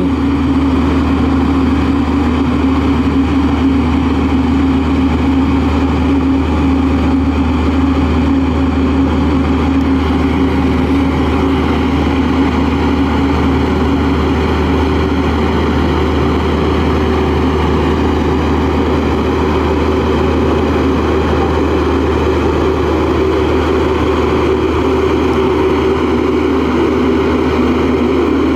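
Diesel engine of a LiuGong single-drum vibratory roller compactor running steadily under load as the roller drives over a spread stone base, compacting it, with a deep, even drone.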